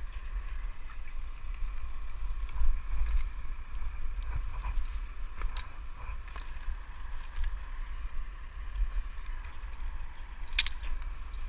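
Wind rumbling on the head-mounted microphone, with light clinks and rattles of metal rigging hardware on the crane hook and slings, and one sharp metallic click about ten and a half seconds in.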